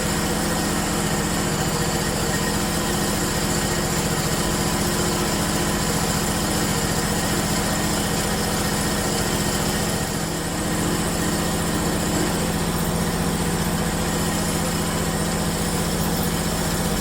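Portable bandsaw mill's engine idling steadily while it warms up.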